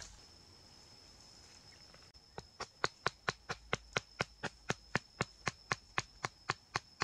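A small chopping blade striking a wooden stick in quick, even blows, about four a second. The blows start about two and a half seconds in.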